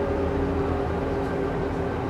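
Mercedes-Benz O405 N² city bus's diesel engine idling steadily while the bus stands still, a low rumble with a few steady whining tones held above it.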